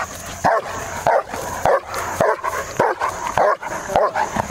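A large black shepherd-type protection dog barking hard and fast on the leash, about two barks a second: an angry protection bark aimed at the helper during bite work.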